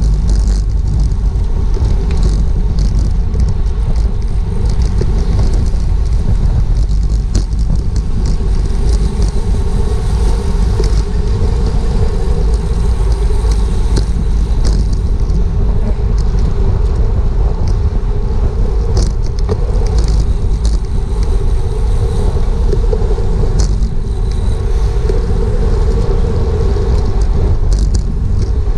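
Steady rumble of wind and road noise from a road bicycle ridden at racing speed in a pack, heard on a GoPro's microphone, with scattered short clicks and rattles from the bike throughout.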